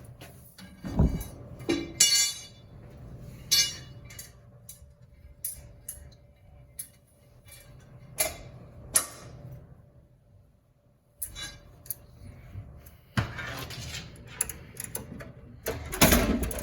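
Scattered metallic clinks and knocks from metal parts being handled, one ringing briefly about two seconds in, with a louder cluster of knocks near the end.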